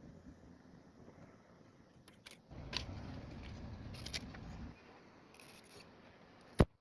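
Small plastic clicks and handling noise as multi-fuse arrays are pulled up out of a car's fuse box, ending in one sharp click.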